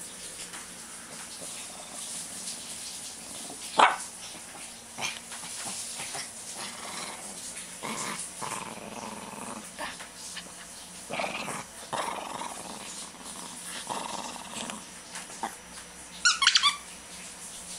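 Shih Tzu growling in play while tussling with a plush toy, with a sharp sound about four seconds in and a short burst of high-pitched sounds near the end.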